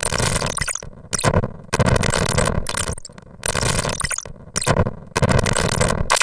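Harsh noise in choppy blocks that start and stop abruptly, each lasting about half a second to a second with brief gaps between, over a faint steady hum.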